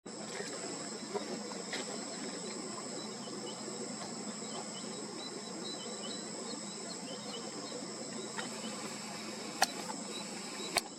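Steady high-pitched chorus of insects such as crickets, two even tones held throughout, with faint scattered chirps and two sharp clicks near the end.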